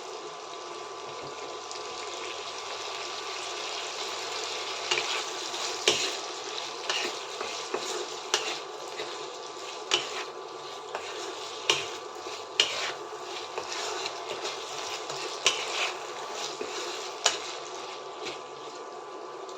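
Cubed potatoes sizzling steadily in hot mustard oil in a kadai, with a spatula stirring them and knocking and scraping against the pan at irregular moments.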